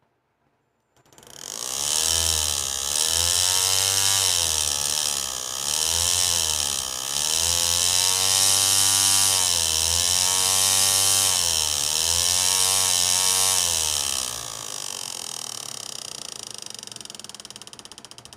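Hard disk's brushless spindle motor, driven by an RC speed controller, spinning up about a second in with a whining whir. Its pitch rises and falls several times as the throttle is worked, then it spins down from about fourteen seconds in.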